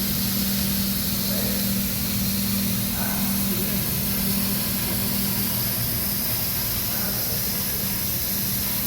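Slitting-rewinding machine running steadily: a constant low hum with an even hiss over it.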